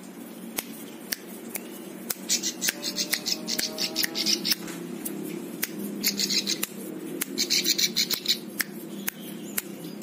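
A caged plain prinia (ciblek sawah) singing: single sharp chips, then three bursts of rapid, clicking trills, the first about two seconds in, another around six seconds and one near eight seconds.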